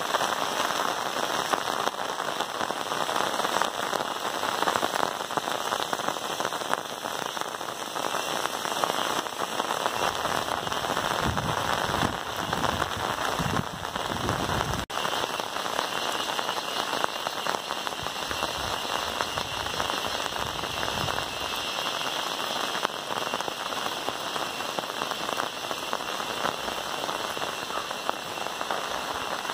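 Steady monsoon rain, a dense even hiss of falling drops, with a low rumble for a few seconds near the middle.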